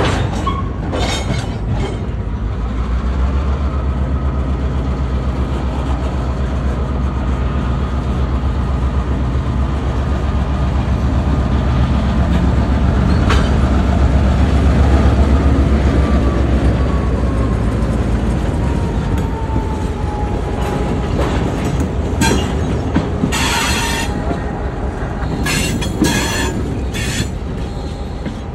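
Diesel locomotive rolling slowly past at close range, its engine rumbling low and loudest about halfway through. A thin wheel squeal holds and then slides down in pitch, and sharp clicks and clanks come from the wheels and rails, mostly near the end.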